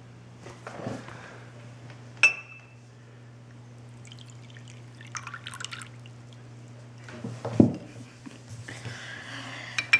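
Water being poured into a small container of yeast, with a sharp glassy clink about two seconds in, light ticks and drips, and a louder knock near the three-quarter mark, over a steady low hum.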